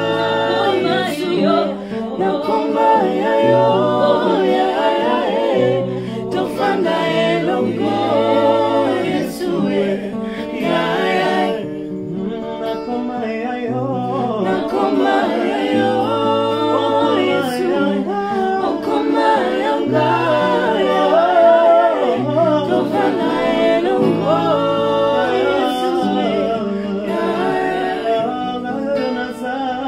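A small mixed group of men and women singing a Lingala gospel song a cappella in close harmony, over sustained low bass notes that change about once a second.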